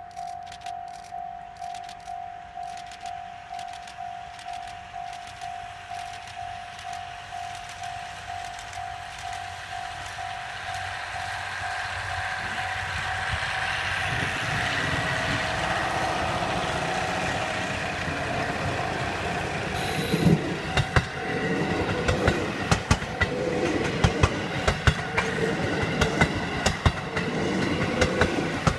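Level crossing warning bell ringing at about two rings a second, while a JR Hokkaido KiHa 183 series diesel train approaches and grows steadily louder. From about two-thirds in, the train passes over the crossing with its wheels knocking rapidly over the rail joints.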